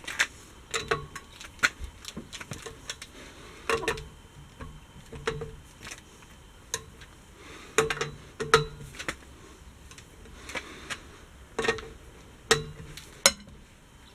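Irregular metallic clicks, clinks and light knocks of hand tools or wheel parts being handled, spaced unevenly with short quiet gaps between them.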